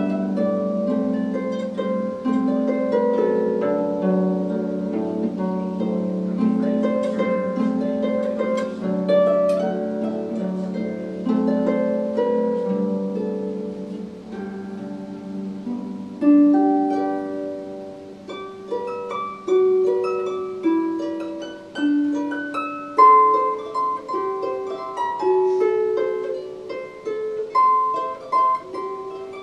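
Solo harp played by hand: plucked strings ringing and overlapping in a flowing melody over lower notes. About halfway through the texture thins to separate plucked notes, each starting sharply and dying away.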